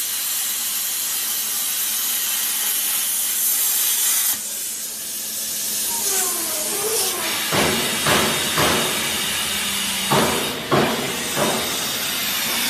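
Hypertherm Powermax 105A plasma torch cutting 18 mm carbon steel: a loud, steady hiss of the arc that stops abruptly about four seconds in. A quieter hiss then continues, with several short knocks near the middle and later.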